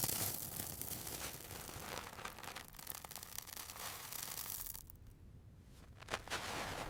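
Faint rustling and crackling noise, dropping lower for about a second past the middle, with a small knock just after six seconds.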